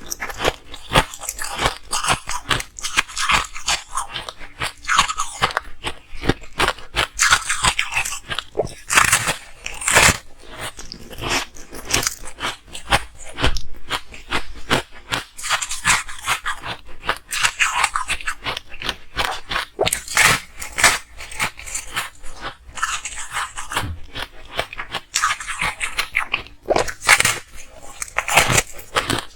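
Ice being bitten and crunched between the teeth close to the microphone. It makes a rapid, irregular run of crisp cracks and crunches that keeps going without a break.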